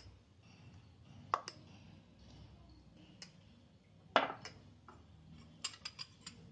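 A few scattered clinks of a spoon against ceramic bowls as thick chutney is spooned from one bowl into another. The loudest comes about two-thirds of the way through, followed by a quick run of small taps near the end.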